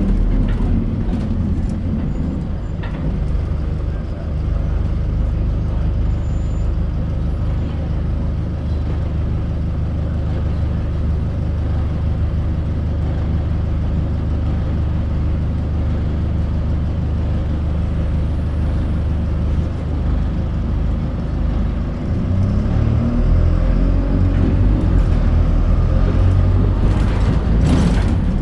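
Alexander Dennis Plaxton Pointer 2 single-decker bus driving, its diesel engine running with a steady low drone. About 22 seconds in the engine note rises and grows louder as the bus pulls away harder.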